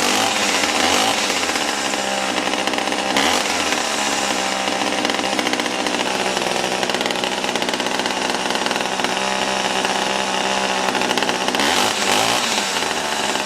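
Old Craftsman 3.7 two-stroke chainsaw running steadily just after a cold start on choke, with a few brief changes in engine pitch.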